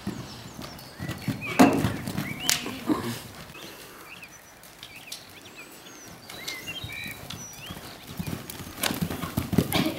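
Horse cantering on a sand arena surface, its hoofbeats thudding in a steady run, with a few louder thuds about a second and a half in, at two and a half seconds, and near the end.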